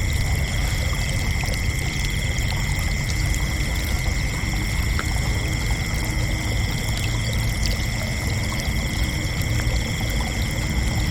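Crickets chirping in a continuous high-pitched chorus, the trill holding steady throughout, over a low rushing rumble.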